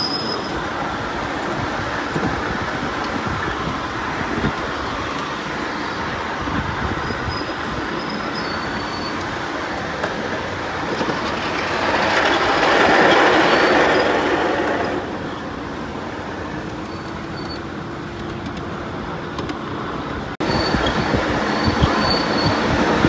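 Ride-on miniature train rolling along a small-gauge track, heard from aboard: a steady rumble of wheels on the rails with frequent clicks over the rail joints. The rumble grows louder for a few seconds about halfway through.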